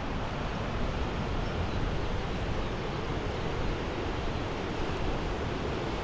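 Steady rush of ocean surf breaking along a sandy beach, with wind rumbling on the microphone.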